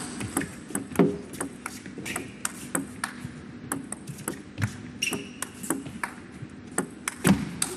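A table tennis ball clicking back and forth off the rackets and the table in a long rally: many sharp, short ticks at an uneven pace.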